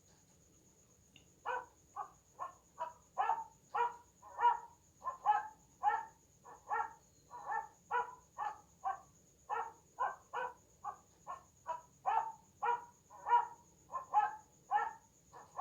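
A dog barking loudly over and over, about two barks a second, starting about a second and a half in.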